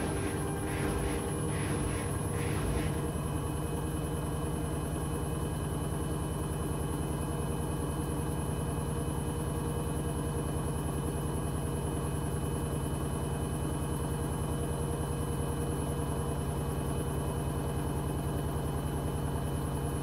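Hoover H-Wash 300 Plus washing machine spinning at 600 rpm with clothes in the drum: a steady motor and drum hum. A rhythmic pulsing at about two a second runs for the first three seconds, then the hum carries on evenly.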